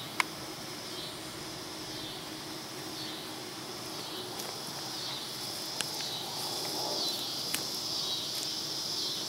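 Outdoor rural ambience with insects chirring steadily in a repeating pattern. A single sharp click sounds just after the start, with a few faint ticks later on.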